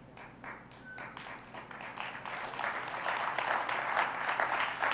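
Congregation applauding: a few scattered claps that swell into fuller applause.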